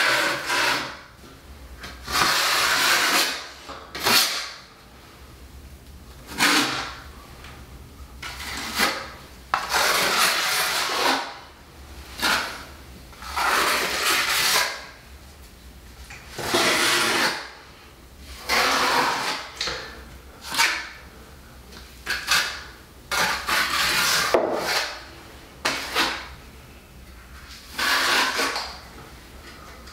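Putty knife scraping along fabric tape bedded in wet Hydroban liquid waterproofing membrane, in repeated strokes about every two seconds, squeezing the membrane out from under the tape and smoothing it over the top.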